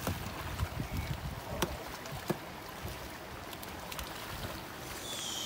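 Muddy water sloshing and splashing in a flooded rice paddy, stirred by a pair of oxen dragging a wooden plough and by people wading and working the mud by hand. A few sharp splashes stand out in the first half.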